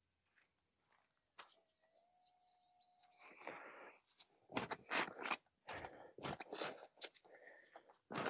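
Boots on soft, wet grass, then a digging spade driven into the turf: a run of short crunching cuts from about four and a half seconds in.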